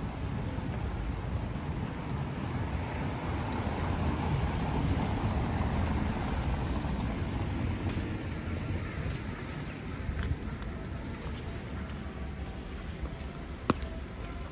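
Steady rain falling, with a low rumble underneath that swells a little in the middle. A single sharp click comes near the end.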